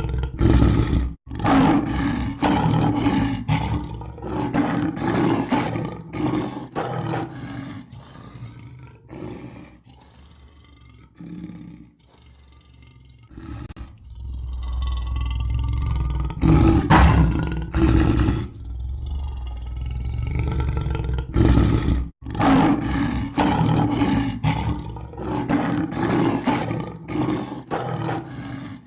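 Lion roaring again and again: loud, deep roars trailing into runs of shorter grunts, quieter for a few seconds around the middle.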